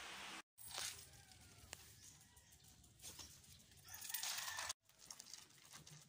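A rooster crowing faintly over quiet outdoor background noise. A louder rush of noise builds later and cuts off suddenly.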